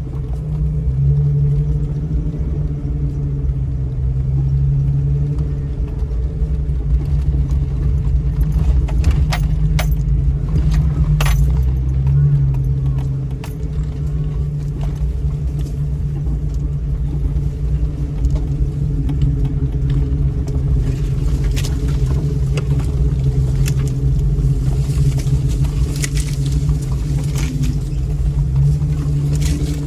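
2000 Jeep Cherokee driving slowly over a rough dirt trail, engine running steadily with a low rumble, heard from inside the cab. Short clicks and rattles come and go over the bumps, clustered about a third of the way in and again in the last third.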